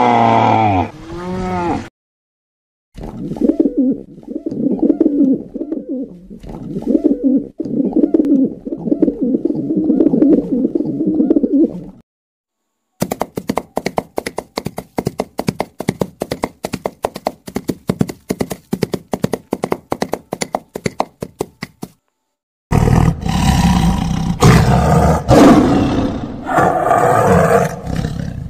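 A string of separate animal sounds. It opens with a hippopotamus calling in wavering tones, then a low, wavering animal call runs for several seconds. Next come a trotting horse's regular hoofbeats, about four or five a second, and near the end two tigers roar as they fight.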